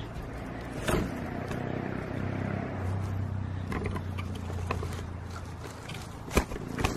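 Camera handling noise as the camera is moved and repositioned: rubbing with a knock about a second in, a low steady rumble through the middle, and a few sharp clicks near the end.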